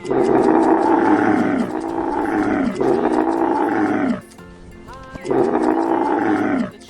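Camel bellowing: three long calls in a row, each falling in pitch, then a fourth after a short pause, over light background music.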